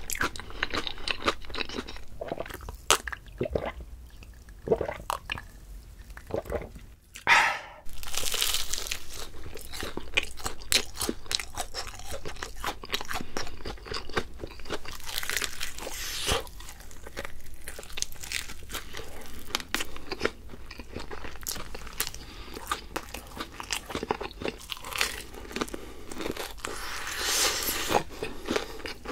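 Close-up crunching and chewing of crispy fried food: repeated crackling bites and chews, with louder bursts of crunching about 8, 15 and 27 seconds in.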